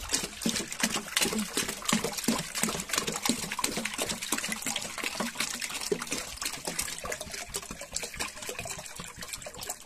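Water poured from a plastic jug into a plastic chicken waterer, splashing continuously with irregular glugs.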